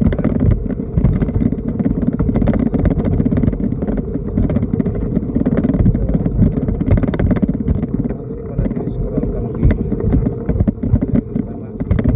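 Steady rumble and rattling of a padyak (pedal pedicab) rolling along a concrete road.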